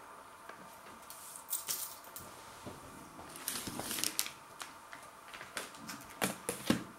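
Plastic food packaging being picked up and handled: crinkles and light clacks in three short bunches as a plastic bacon pack and a cardboard cheese box are lifted.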